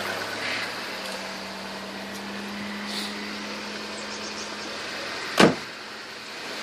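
Car engine idling just after a cold start, a steady hum. A single sharp knock about five seconds in is the loudest sound.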